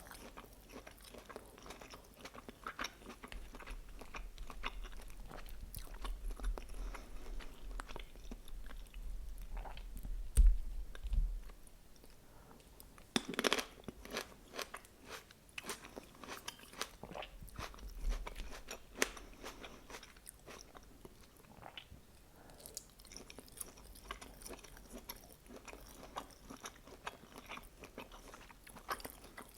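Close-miked eating of chicken lyulya kebab and vegetables: repeated biting and chewing with many crisp crunches. A loud low thump comes about ten seconds in.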